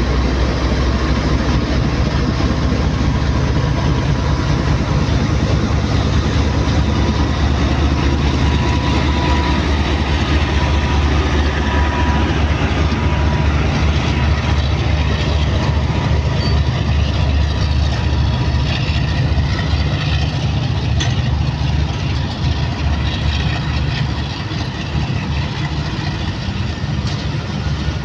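Pakistan Railways GEU-40 diesel-electric locomotive pulling a passenger train away from a stop, its engine under load giving a heavy low rumble with a faint steady whine, as the coaches roll past on the rails. The sound eases a little near the end as the train moves off.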